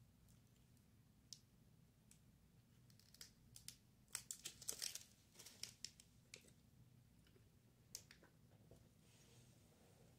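Crinkly plastic snack-bar wrapper being handled and peeled back: scattered faint crackles, with a dense burst of crinkling about four to five seconds in.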